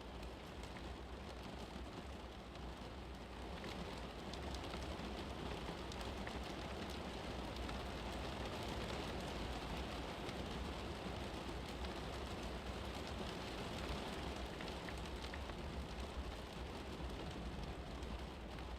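Steady background rain soundscape: an even hiss of rain with fine patter and a low rumble, growing a little louder after a few seconds.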